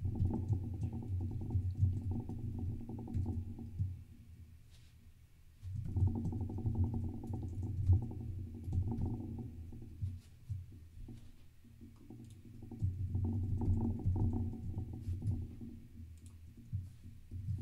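Typing on a computer keyboard in three bursts, with short pauses between them.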